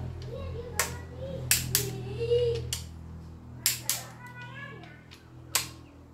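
A click-type torque wrench on a socket extension gives sharp clicks, several in pairs, as main bearing cap bolts on an engine block are pulled up to torque. A low steady hum fades underneath.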